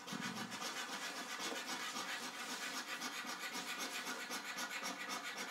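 A coin scratching the coating off a paper lottery scratch card in quick, even back-and-forth strokes, several a second.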